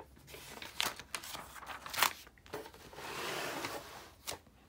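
A page of a large spiral-bound book being turned by hand: several crisp paper flaps and rustles, the loudest about two seconds in, then a longer soft rustle and a last light tap near the end.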